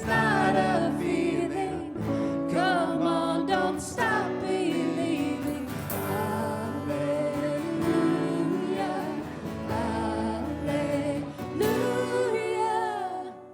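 Live worship band: voices singing a melody over guitar and other instruments.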